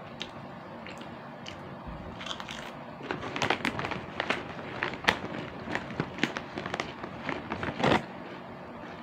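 Plastic snack bag of chicharon crinkling as a hand rummages in it, a run of sharp crackles from about three seconds in, loudest near the end.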